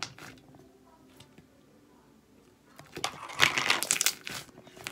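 Thick slime being worked by hand. After a quiet stretch, a dense run of sticky crackling and popping comes in about three seconds in.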